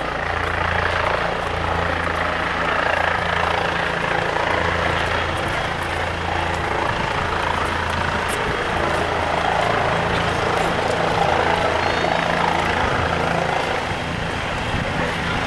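Helicopter running steadily, a constant low drone from its rotor and engine.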